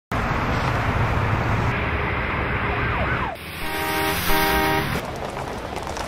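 City road traffic: cars passing with steady road noise. Near the middle, a vehicle horn sounds twice in quick succession, each blast under a second long.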